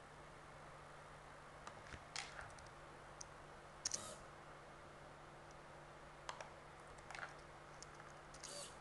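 Faint, irregular light clicks and taps, about ten scattered over several seconds, the loudest a quick pair about four seconds in, over a quiet steady hum.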